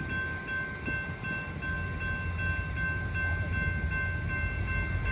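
Railroad grade-crossing warning bell ringing in a fast, even repeating ding while the signals flash, over a steady low rumble.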